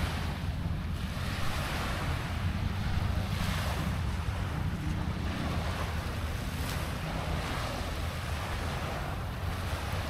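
Sea waves washing onto the beach in soft surges every few seconds, with wind buffeting the microphone as a steady low rumble.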